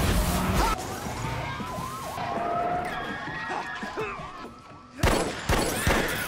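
Several police sirens wailing at once, their rising and falling tones overlapping, after a heavy low rumble of car noise in the first second. About five seconds in, a quick run of loud, sharp bangs cuts in.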